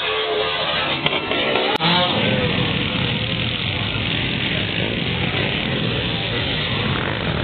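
Motocross dirt bike engines revving on the track, mixed with a crowd of spectators talking.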